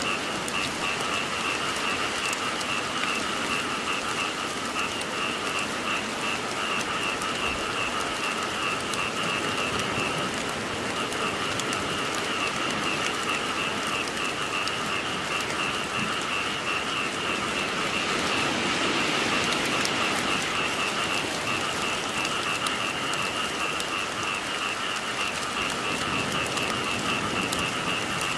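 Steady rain falling, with a chorus of frogs calling in fast, pulsing trills over it. About two-thirds of the way through, the frog calls fade for a few seconds while the rain swells.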